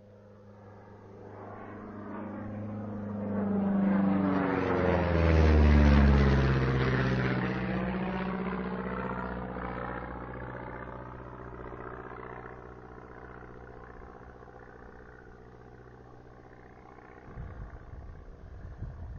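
Propeller airplane flying over: its engine drone grows louder, peaks about six seconds in with the pitch dropping as it passes, then fades away. A rougher, uneven rumble starts near the end.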